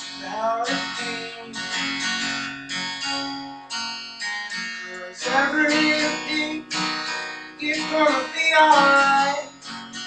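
Acoustic guitar strummed, an instrumental break between sung lines of a song.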